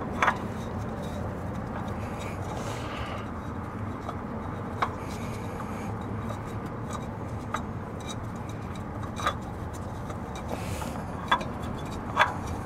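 A new spin-on oil filter being worked onto its threaded mount by a gloved hand: a few sharp clicks and knocks scattered through, over steady background noise. The filter is not threading on easily.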